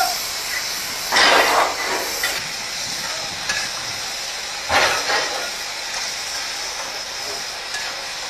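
Steam locomotive's steady hiss of escaping steam, swelling louder twice for about half a second, about a second in and again some four seconds later.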